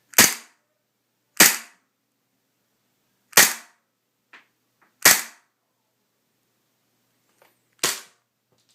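Airsoft gun firing five single shots at uneven intervals, each a sharp crack that dies away quickly, with a couple of faint clicks between shots.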